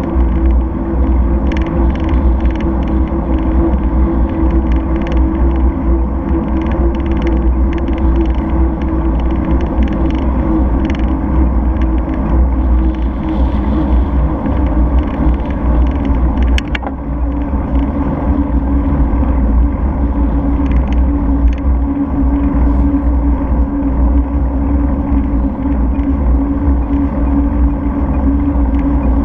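Steady low rumble of road vibration and air rushing past a bicycle-mounted camera while riding along a tarmac road, with light ticks and rattles throughout and one sharper click about two thirds of the way through.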